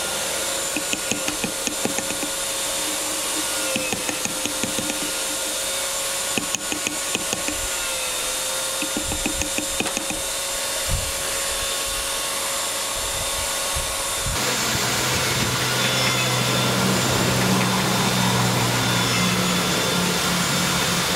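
Workshop tool noise from wooden belt pieces being hand-filed and sanded: groups of quick rasping strokes over a small power tool running steadily. About two-thirds of the way through, the strokes stop and a lower, steady machine hum takes over.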